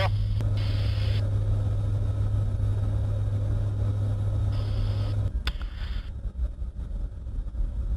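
Steady low drone of a C-130J's four turboprop engines and six-bladed propellers in climb, heard from inside the cockpit. About five seconds in the drone drops in level and a single click sounds.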